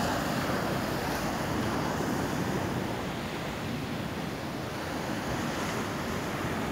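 Atlantic surf: waves breaking and washing up the shore in a steady rush.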